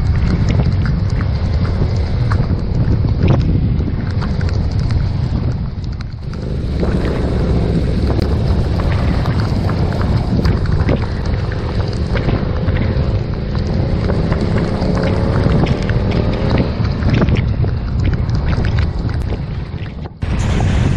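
Wind buffeting a motorcycle-mounted action camera's microphone while riding, with the motorcycle's engine faintly heard underneath, its pitch rising and falling with the throttle. The sound drops out briefly near the end.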